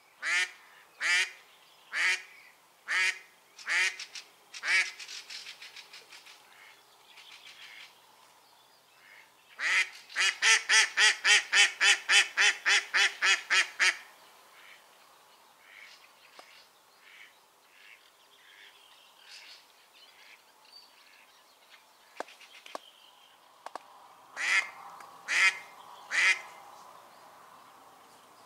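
Live decoy hen duck quacking: loud single quacks about one a second, then a fast run of some fifteen quacks at about four a second around ten seconds in, softer calls in between, and single quacks again near the end. It is calling to lure drakes.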